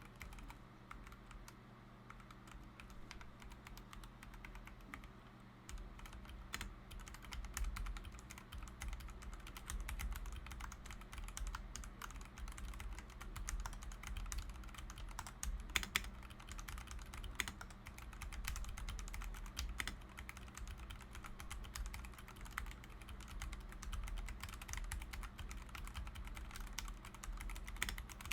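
Typing on a LOGA Carnival mechanical keyboard with Gateron Brown tactile switches: a steady clatter of keystrokes, lighter for the first few seconds and denser and louder from about six seconds in, over a faint low hum.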